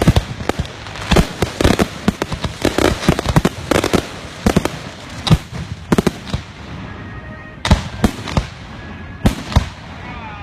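Aerial fireworks going off in a rapid string of bangs and crackling reports. After about six seconds they thin out to a few single, louder booms.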